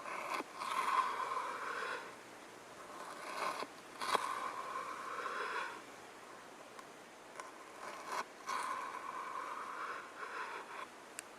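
A knife and chopping board being used on vegetables: three stretches of scraping or sliding, each a second or two long, with a few sharp knocks of the blade against the board.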